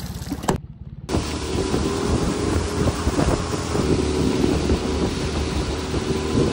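A boat motor running steadily under a wash of wind noise on the microphone. It cuts in about a second in, after a short break.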